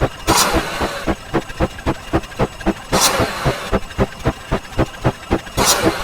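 Edited sound effects: a fast, even train of clicks, about five a second, with a short hissing whoosh three times, roughly every two and a half seconds.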